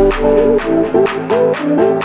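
Electronic background music: a melodic synth line over a steady beat.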